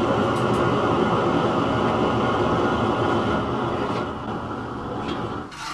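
Gas burner of a homemade aluminium-melting furnace running with a steady roar. It eases off in the last second or two and drops away sharply near the end.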